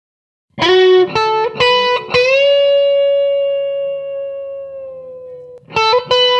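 Red Stratocaster-style electric guitar playing a slow, sparse improvised melody in D Dorian. A few short picked single notes lead to a note bent up in pitch and held for about three seconds as it fades, then two more notes near the end.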